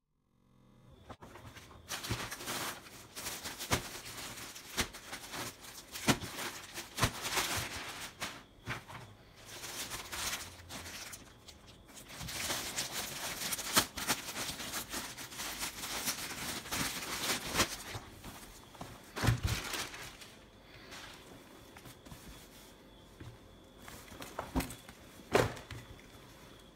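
Clear plastic polybag crinkling and rustling as folded clothing in it is handled and unwrapped, with scattered clicks and soft knocks. It is busiest in the first two-thirds and quieter near the end.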